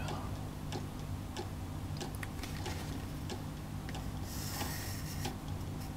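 Faint clicks and taps of a plastic ruler being set on paper, then a graphite pencil scratching a line along the ruler edge for about a second, near the end. A low steady hum runs underneath.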